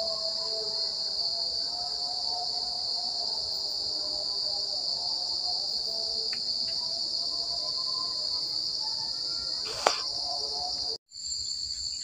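Steady, high-pitched chorus of insects chirring in the evening, a continuous shrill drone with a fine pulsing texture. One sharp click sounds near the end, then a brief dropout at a cut, after which the chorus goes on.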